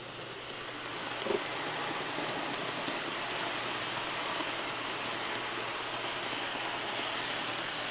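Kato N scale Santa Fe Super Chief passenger train running past on its track: a steady, even whir of small wheels and motors that swells about a second in and then holds.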